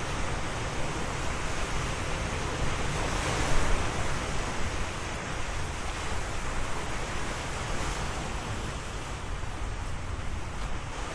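Ocean waves: a steady rush of surf, with one wave surging louder about three and a half seconds in.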